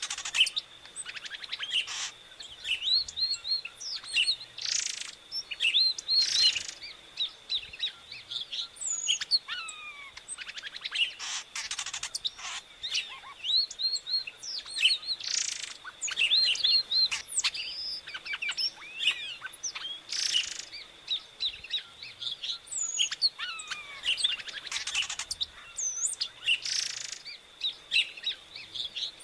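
Epaulet oriole (inhapim, Icterus cayanensis) singing: a busy run of varied chirps and short whistled phrases that rise and fall, over a faint steady high tone.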